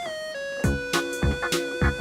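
Background music: a synthesizer melody stepping down in held notes, joined a little over half a second in by a steady kick-drum beat.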